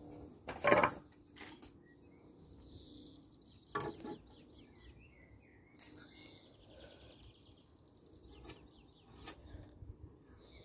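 Birds chirping in the background, with a few short sharp knocks and clatters of wood and hand tools being handled; the loudest knock comes just under a second in, others around four and six seconds.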